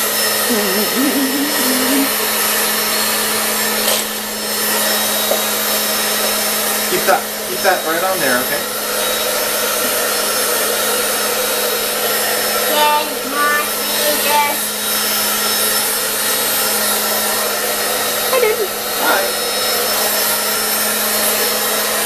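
Hand-held hair dryer running steadily on its high setting: a constant rush of blown air with a steady low hum under it.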